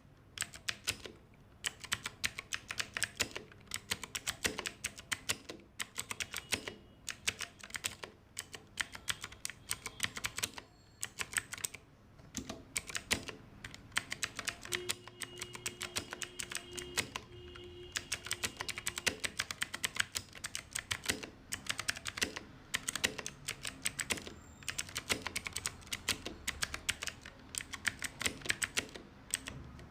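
Typing on an Ajazz AK33 mechanical keyboard with clicky blue switches: fast runs of sharp key clicks broken by short pauses.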